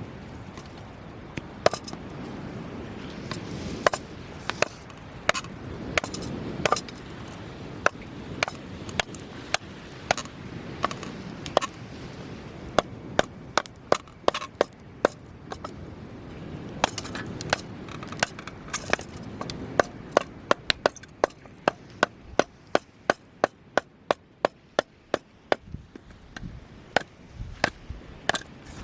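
Burning firewood giving sharp, irregular cracks and snaps, coming thick and fast in the second half, over a low steady rush.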